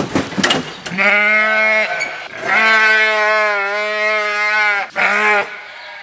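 A ewe bleating loudly three times: a short bleat, then a long drawn-out one, then a short one. A brief clatter at the very start.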